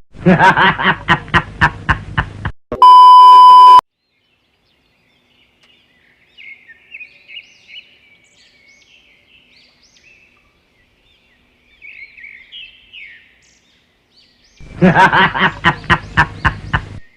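A loud steady beep lasting about a second, then several seconds of faint bird chirping. At the start and again near the end comes a two-second run of rapid pulsed calls, about five a second.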